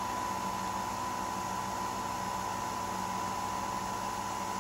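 Nespresso Vertuo coffee machine running its centrifusion brew cycle: a steady whirring hum with a steady high tone, the capsule spinning as coffee is dispensed.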